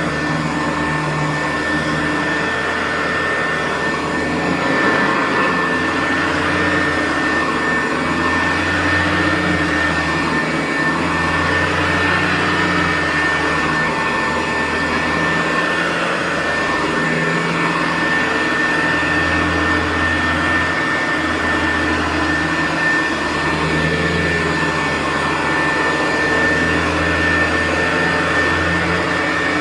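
Early-1970s Hoover U4007 upright vacuum running continuously on carpet, with a steady high motor whine. A lower drone under it swells and fades every couple of seconds as the cleaner is worked back and forth.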